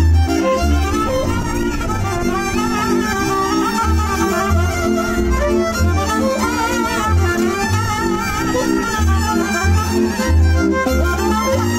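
Traditional Maramureș dance music: a fiddle plays a wavering, ornamented melody over repeated accompanying chords and a deep, pulsing bass beat.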